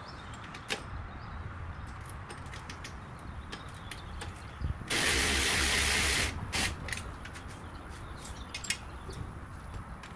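Scattered light clicks and knocks of hand tools on car suspension parts, with one loud hiss lasting about a second and a half about five seconds in.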